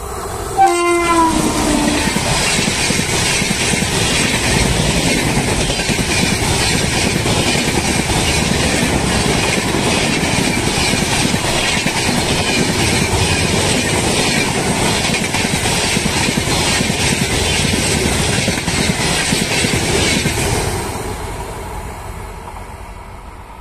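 Passenger train hauled by an Indian Railways electric locomotive passing close by at speed: the locomotive's horn sounds briefly about a second in, dropping in pitch as it goes by, then the coaches' wheels rumble and clatter rhythmically over the rails. The clatter fades over the last few seconds as the train moves away.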